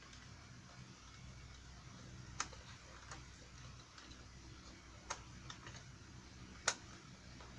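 Sparse light clicks of a small screwdriver and hard plastic as a screw is worked on the underside of a plastic toy boat: about six irregular clicks, the sharpest about two and a half seconds in and near the end.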